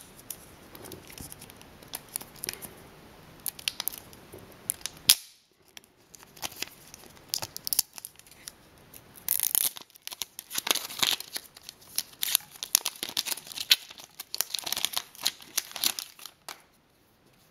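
Thin plastic protective film and wrapping crinkling and tearing as it is peeled off by hand, in irregular crackles and rustles with several louder bursts in the second half.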